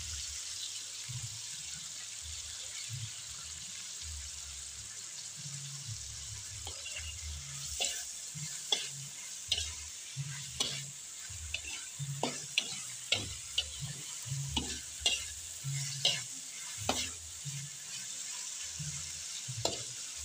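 Tempeh and napa cabbage stir-frying in sweet soy sauce, a steady sizzle in the pan as they are stirred. From about seven seconds in, the spatula knocks and scrapes against the pan irregularly, one or two clicks a second.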